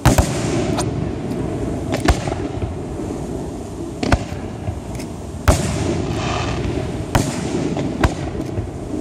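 Aerial fireworks bursting overhead: about seven sharp bangs over nine seconds, over a continuous low rumble of other bursts echoing.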